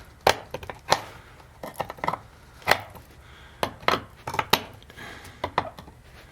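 Short, irregular scrapes and clicks of a scraper picking hardened varnish out of the slots of flathead screws in old rusty hinges, about a dozen sharp strokes spread unevenly.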